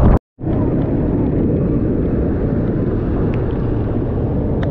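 Steady low rumble of street traffic, with a brief cut to silence just after the start.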